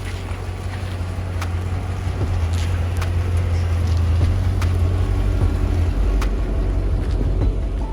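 A car engine running with a low rumble that gets louder over the first few seconds.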